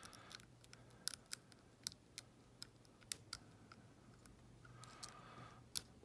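Small, sharp clicks of a lock pick working the pin stack inside an old brass Ruko padlock under light tension. About ten clicks come at irregular intervals.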